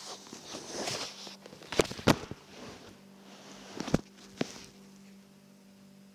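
Rustling with several sharp knocks and taps: two close together about two seconds in and two more around four seconds, over a faint steady hum.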